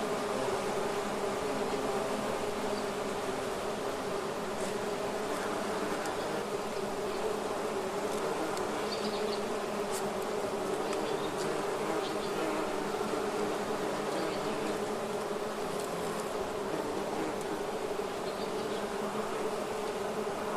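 Bees buzzing together in a steady, continuous drone, with no pauses or swells.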